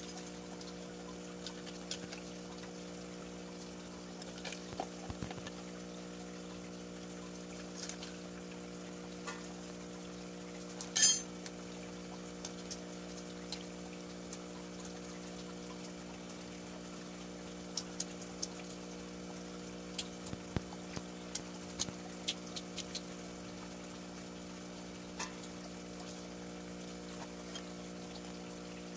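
Live snail shells being cracked with a small hammer on a stone slab, heard as scattered sharp clicks and knocks as the shells are tapped and clink together; the loudest knock comes about eleven seconds in. A steady low hum runs underneath.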